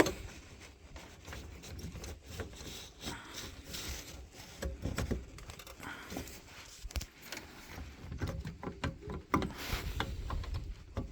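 Scattered small plastic clicks and scrapes as the original high-beam bulb is twisted out of a Toyota Sienna headlight housing and its wiring connector is unlatched and pulled off, with a few sharper clicks near the end.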